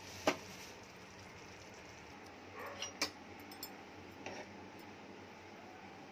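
A few light clicks and clinks, with one sharper knock about three seconds in, as a stainless steel plate is handled and set down, over a faint steady hum.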